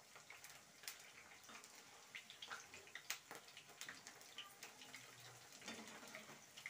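Potato-and-onion pakoras deep-frying in hot oil in a kadhai: a faint sizzle with scattered small crackles and pops while they are turned over.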